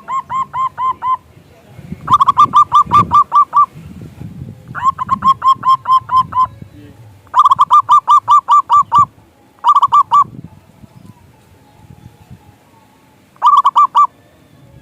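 Zebra dove (perkutut) calling: six bursts of fast, evenly spaced cooing notes, about six notes a second, each burst lasting one to two seconds. There is a longer pause about two-thirds of the way through.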